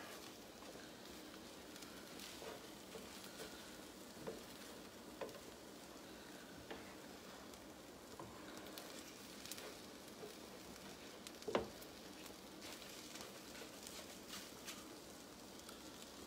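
Scrambled eggs sizzling faintly in a pan while a silicone spatula stirs and scrapes them, with small scattered clicks and one louder knock a little past halfway.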